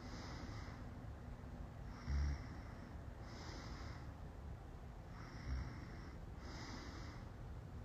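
A person passed out asleep, snoring: two short low snores about three seconds apart, with slow hissy breaths in between.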